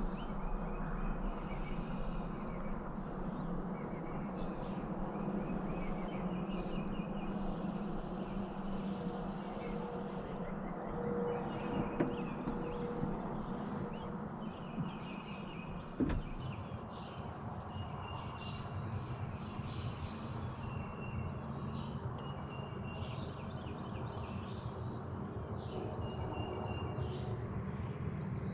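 Evening outdoor ambience: a steady low hum and background hiss, with short high chirps repeating throughout and two faint knocks, about twelve and sixteen seconds in.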